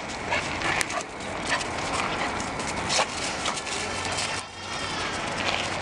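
Two pit bulls, a mother and a pup, play-wrestling on bare dirt: paws scuffling and scraping, with many short scratchy noises and some dog play sounds.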